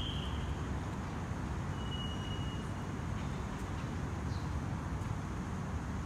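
Steady low rumble of city traffic. Two thin, steady high notes sound over it: one fading out just after the start, the other about two seconds in.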